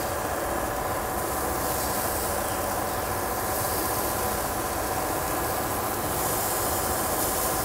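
Oiled vegetable skewers sizzling on the hot grate of a Big Green Egg charcoal grill, a steady hiss.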